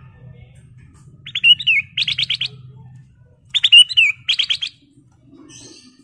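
Ruby-throated bulbul (kutilang emas) singing two short, loud phrases about a second apart. Each phrase is a quick run of clear whistled notes with a twisting, sliding note in the middle.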